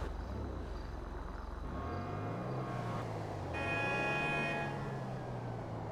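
Mazzanti Evantra Millecavalli's twin-turbocharged LS7 V8 engine revving up and falling back twice. A steady high tone sits over it for a second or so around the middle.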